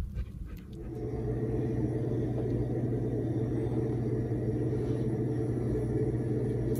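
Low wind rumble on the microphone for under a second. Then a steady mechanical hum with a low drone starts and holds evenly.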